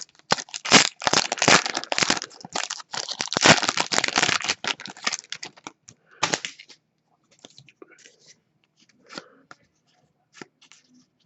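Foil wrapper of a 2018-19 Upper Deck hockey card pack being torn open and crinkled: dense crackling for about five seconds, then only a few faint clicks and rustles as the cards are handled.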